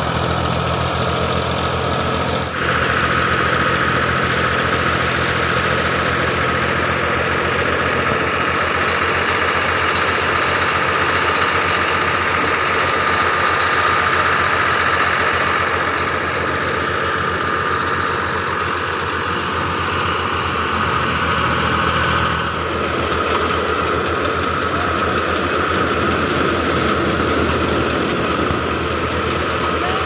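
Engine-driven wheat thresher running steadily: a low engine rhythm under the whir of the threshing machine. The sound shifts abruptly twice, about two and a half seconds in and past twenty-two seconds.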